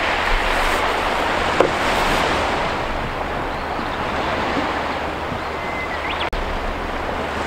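Sea waves washing on the shore: a steady rushing that swells a little in the first few seconds, with wind rumbling on the microphone. A short whistle-like chirp comes about six seconds in.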